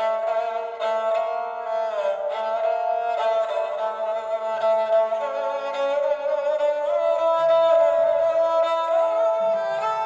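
Sampled bowed ethnic strings from Sonuscore's Ethnic String Phrases library playing a melodic phrase of sustained, fiddle-like notes that slide between pitches, a new note about every second.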